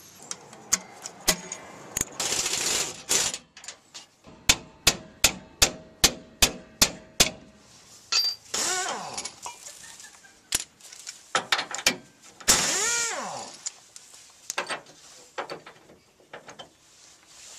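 Hand tools working on a pickup's rear leaf-spring hardware: an even run of about nine sharp knocks, roughly three a second, amid scattered clicks, a few longer noisy bursts and two short rising-and-falling whines.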